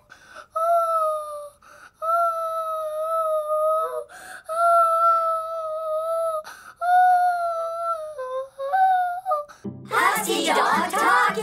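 A girl singing long, high, drawn-out notes, about four of them, each held a second or two, then a few shorter stepped notes. Near the end a short burst of music comes in.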